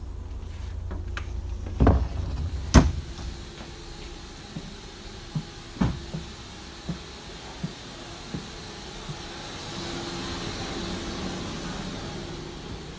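Connecting door inside a Mat '64 electric train carriage being pushed through, with two loud clunks about two seconds in, followed by footsteps down the aisle about one every 0.7 seconds. A soft hiss rises near the end.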